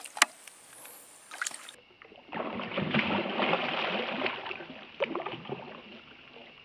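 A hooked fish thrashing at the water's surface on a pole-and-line rig, with a dense run of splashing that is loudest in the middle and a sharp splash about five seconds in.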